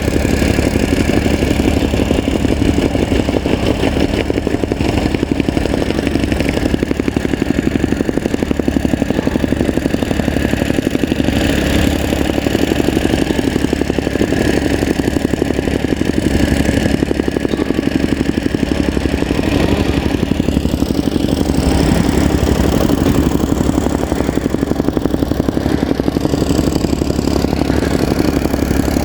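Soil compactor running steadily: its small engine keeps up a fast, even pulsing with a clatter.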